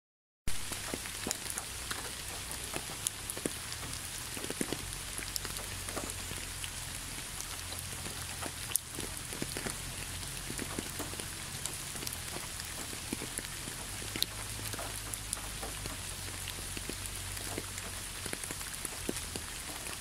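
Steady rain falling, with many separate drops ticking close by over an even hiss. It starts abruptly about half a second in.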